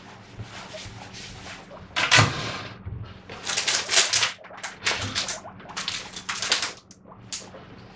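Guinea pig wheeking: a run of loud squeals, each under a second, coming about once a second from about two seconds in until near the end. This is the wheek a guinea pig uses to beg for food.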